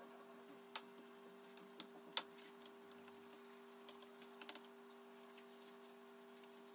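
Near silence with a steady low hum and a few soft clicks and taps, the sharpest a little over two seconds in, from hands working minced meat onto a flat metal kebab skewer under a plastic sheet.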